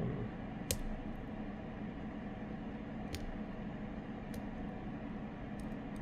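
A few scattered small clicks of lock picks working the pins of a Medeco Biaxial lock, over a steady background hum.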